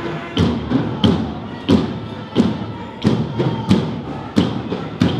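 A steady beat of heavy thumps, about three every two seconds, each sharp and struck hard.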